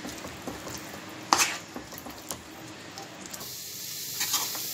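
Spatula scraping and stirring a thick moong dal and ghee mixture in a non-stick kadai, with light sizzling from the hot ghee and one sharp knock of the spatula on the pan about a second in. The mixture is past the halwa stage and being cooked down until it thickens for burfi.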